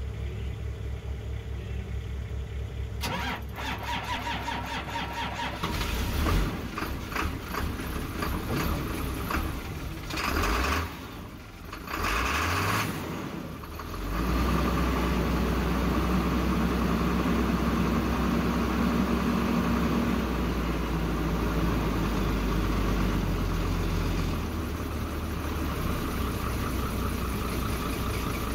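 Isuzu FTR truck's six-cylinder diesel engine being started: the starter cranks it about three seconds in, it fires and runs unevenly with a few surges, then settles into a steady idle from about halfway through.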